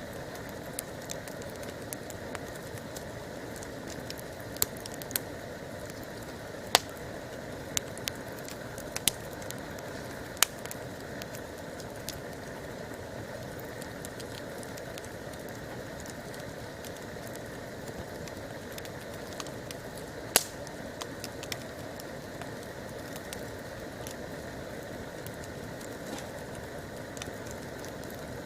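Wood campfire burning, with scattered sharp crackles and pops over a steady hiss; the loudest pops come about seven and twenty seconds in.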